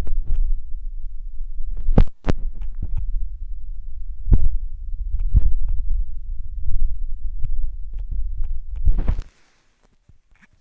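Low, uneven rumbling noise with scattered clicks and thumps over it, cutting off suddenly about nine seconds in.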